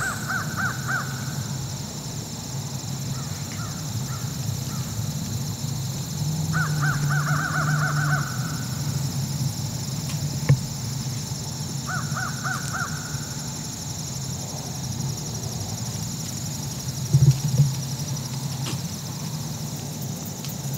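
Crows cawing in quick runs of calls, three bouts: at the start, about six seconds in, and about twelve seconds in.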